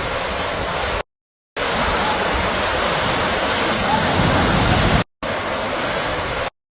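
Floodwater rushing over a flooded highway, a steady loud roar of water. It cuts out abruptly about a second in, briefly near five seconds, and again shortly before the end.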